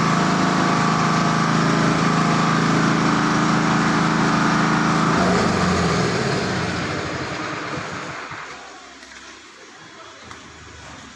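Motor of a homemade peanut frying machine running steadily, then shut off about five seconds in and winding down, fading out over the next three seconds.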